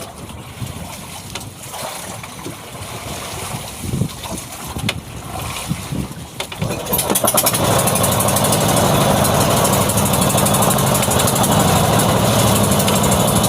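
A small boat engine, after a few knocks, catches about halfway through and then runs steadily.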